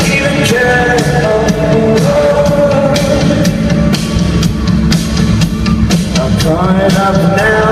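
Rock band playing live: a singer's voice over a drum kit and the full band, steady and loud.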